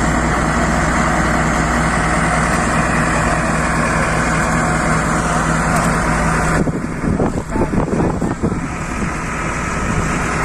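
Truck engine idling steadily. About two-thirds of the way through, the even hum gives way to a couple of seconds of irregular, uneven noise before settling again.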